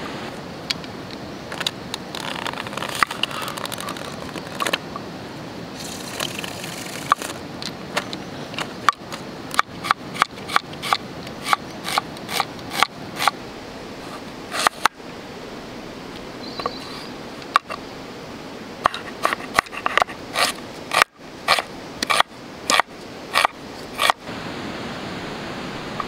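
Kitchen knife chopping an onion on a cutting board: runs of sharp chops, about two or three a second, after some scraping and rustling in the first few seconds, over a steady rush of river water.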